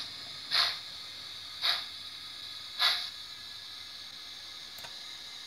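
Sound decoder (ESU LokSound V4.0) in a Liliput BR 56 model steam locomotive playing steam-exhaust chuffs through its stock speaker: three slow chuffs about a second apart, then only a steady hiss, with a faint click near the end.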